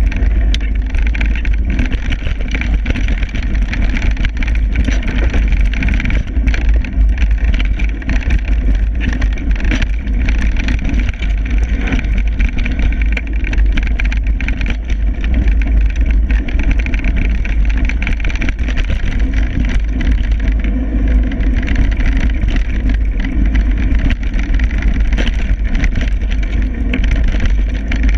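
Mountain bike rolling fast down a dirt trail. Wind buffets the camera microphone in a heavy rumble, the tyres run on the dirt, and the bike gives a continual clatter of small knocks and rattles over the bumps.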